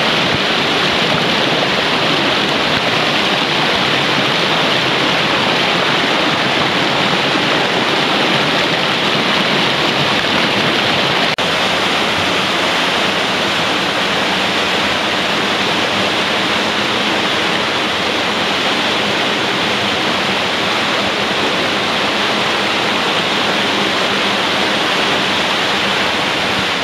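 Mountain stream rushing over boulders, with a small cascade pouring into a pool and then shallow riffles running over stones: a steady, loud rush of water. About eleven seconds in, the deepest part of the rush drops away a little.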